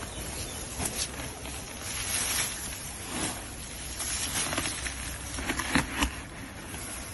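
Hands rustling and scraping through dry leaf litter, brush and soil while digging into the undergrowth, with a few sharp clicks, two of them close together near the end.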